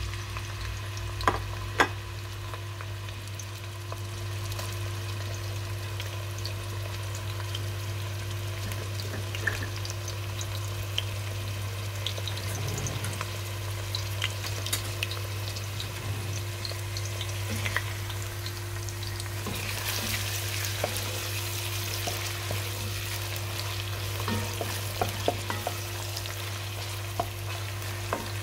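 Chopped red onions sizzling and crackling in hot oil in a pot, the crackling getting denser in the second half, with a wooden spoon stirring near the end. Two sharp knocks come just after the start, and a steady low hum runs underneath.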